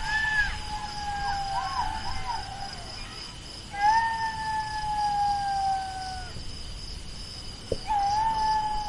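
Jackal howling: long, drawn-out wailing calls that hold their pitch and sag slowly downward, with quick wavering yelps in between. Three wails are heard, the first ending about two and a half seconds in, the second running from about four to six seconds, and the third starting near the end. A steady high-pitched chirring runs underneath.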